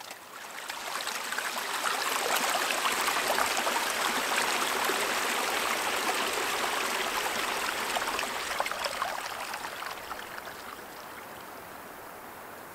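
Shallow creek running and trickling among ice formations, a steady splashing babble. It fades in over the first couple of seconds and fades out about ten seconds in, leaving a quieter steady hiss.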